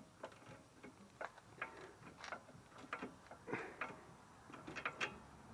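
Hand ratchet clicking in short, irregular runs as it tightens a sway bar end link nut. The ratchet is missing its cover and a screw and still acts up after fresh grease.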